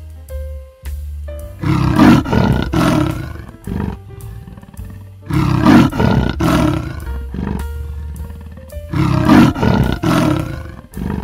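A large animal calling loudly in three bouts a few seconds apart, each a second or two long.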